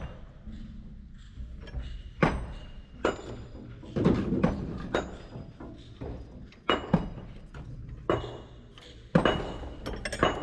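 Metal hand tools knocking and clinking against the exposed cylinder head of a Kobelco SK200 excavator engine during injector work: about a dozen sharp strikes at irregular intervals.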